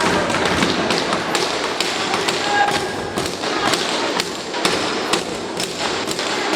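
Sound of a live game in play: many irregular sharp taps and thuds over a steady background hubbub, with a few brief shouts.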